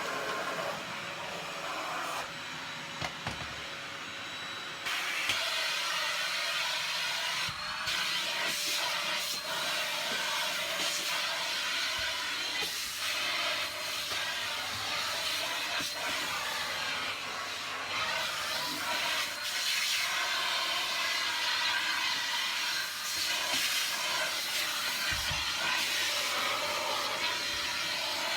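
Vacuum cleaner running steadily, a hiss of rushing air with a faint high motor whine. It gets louder and brighter about five seconds in, and there are a few faint low knocks.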